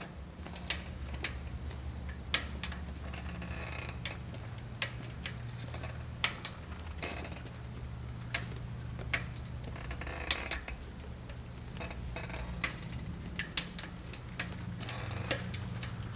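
Sturmey-Archer internal gear hub clicking as the wheel turns: sharp, irregular metallic clicks, roughly one or two a second, which are the hub's annoying noise. A steady low hum runs underneath.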